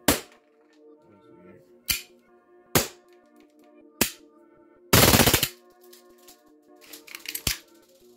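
Elite Force Glock 18C gas blowback airsoft pistol, running on propane, firing four single shots spaced one to two seconds apart. It then fires a short full-auto burst of about half a second, followed by a few quicker, lighter shots. Background music plays throughout.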